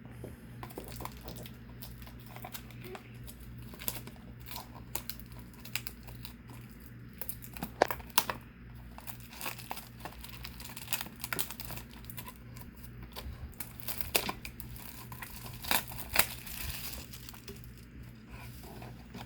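Plastic wrapping being torn and crinkled by hand: the sound of a sealed trading-card box being opened. It comes as an irregular run of crackles and snaps over a steady low electrical hum.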